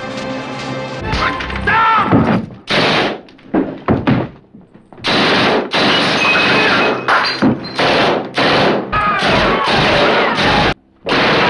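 MAC-10 submachine guns firing full-automatic bursts, about a dozen in quick succession, some short and some over a second long, with brief gaps between them. Background music plays for about the first second before the firing starts.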